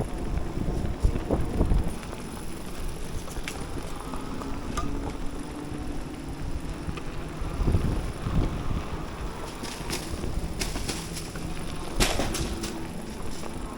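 Electric bike riding along a trail: steady tyre and drivetrain rumble with wind on the microphone, and several sharp knocks and rattles from the bumps along the way.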